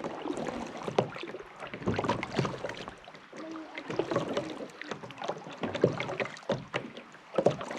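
Kayak paddling on a lake: paddle strokes splashing and dripping in the water, with irregular clicks and knocks.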